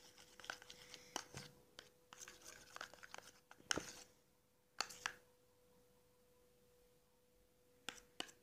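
A metal spoon stirring liquid soap and salt that is setting into slime in a small plastic tub: irregular clicks and scrapes of the spoon against the plastic, with a quiet pause of a few seconds in the second half.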